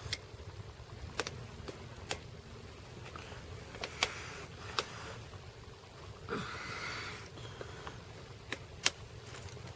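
Scattered sharp clicks of pliers and a wire fence clip working against a fence post as the clip is tightened, with a short breath about six and a half seconds in.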